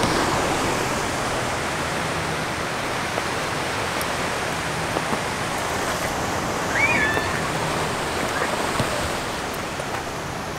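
Surf washing onto a rocky shore: a steady rush of breaking waves.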